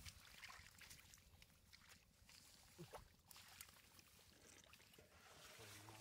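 Faint, scattered splashes and wet slaps of fish flapping in shallow muddy water, with hands working in the mud.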